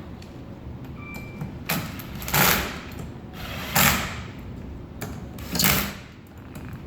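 Three short scraping, sliding noises about one and a half seconds apart: a motor being handled and slid onto a keyed shaft. A brief faint squeak about a second in.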